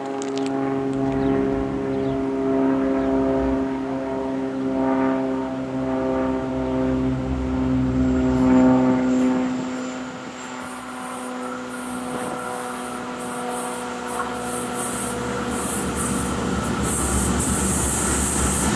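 Approaching Union Pacific freight train, led by SD70ACe diesel locomotives, sounding its air horn in long steady blasts. After about ten seconds the horn stops, and the rumble and clatter of the wheels on the rails grows louder as the train draws near.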